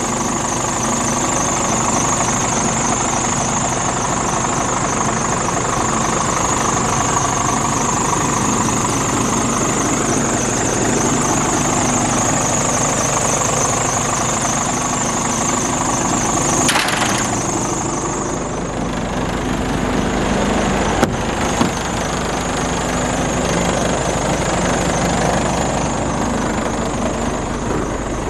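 Scania R410 Euro 6 truck's 13-litre inline-six diesel idling steadily, with a high whine over the engine note that drops away for a few seconds past the middle and comes back near the end.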